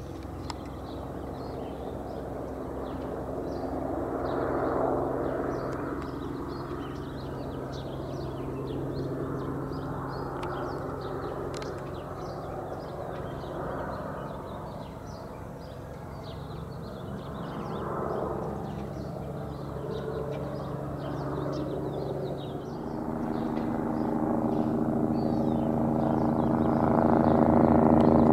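Air ambulance helicopter circling overhead: a steady drone that swells and fades as it goes round, growing louder over the last few seconds as it comes closer.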